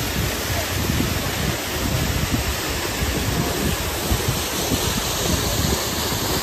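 Steady rush of a waterfall, with wind buffeting the microphone in uneven low gusts.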